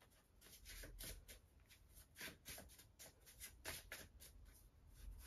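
Faint, irregular soft clicks and rustles of cards being handled on a table: cards picked up, slid and turned over.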